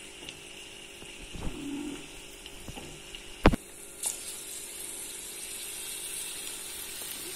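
Batter-coated idli pieces deep-frying in hot oil in a metal kadai: a steady sizzle that grows louder about four seconds in as another piece goes into the oil. There is a sharp knock just before that and a few soft handling thumps earlier.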